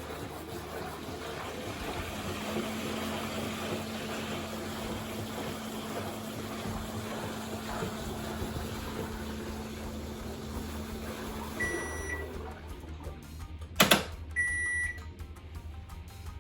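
Panasonic drum-type washing machine turning its drum, with the shaka-shaka, shuru-shuru swishing of a worn drive belt over a steady motor hum: a belt near the end of its life that is likely to come off and trigger error H35. The hum stops about 12 s in, followed by short beeps from the machine and a sharp click.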